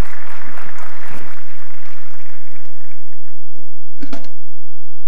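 Audience applauding, dying away over about three seconds. About four seconds in there is a short knock.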